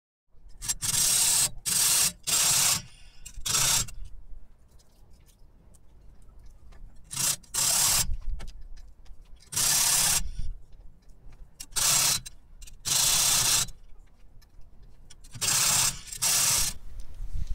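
Hand strokes of a hacksaw blade cutting into a thin metal strip clamped in a vise, about eleven rasping strokes in short groups with pauses between.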